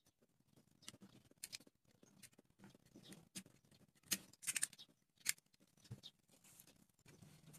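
Utility-knife blade cutting into wooden popsicle sticks: short scraping strokes, with a quick run of louder ones a little past the middle, amid light clicks from handling the sticks.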